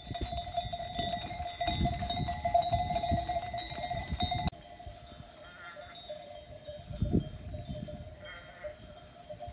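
Sheep bells ringing steadily as a flock of sheep moves over grassland, with a couple of faint bleats later on. The bell sound drops off sharply about halfway through.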